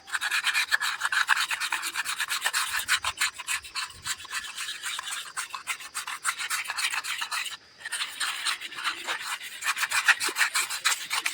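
Sandpaper scrubbing the linings of a motorcycle's rear drum-brake shoes in rapid back-and-forth strokes, with a short break about two-thirds of the way through. This is the scraping off of the brake dust that makes the brake squeal.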